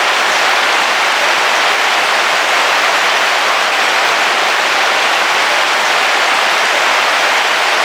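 Heavy rain falling steadily on a car roof, heard from inside the vehicle: a dense, even hiss.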